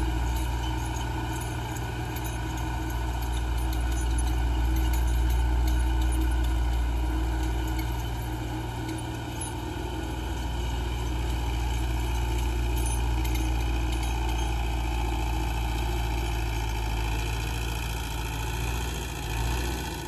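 Belarus MTZ-82 tractor's four-cylinder diesel engine running steadily under load, driving a rear-mounted rotary tiller through the soil, with a light metallic clatter over the engine note.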